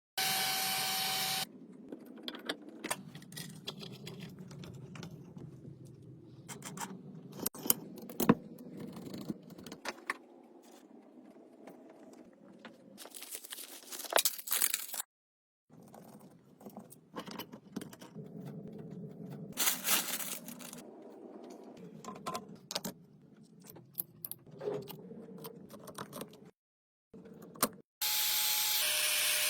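Metal tools and parts clinking and scraping in a workshop, with a loud hiss at the start and again near the end, and several abrupt cuts.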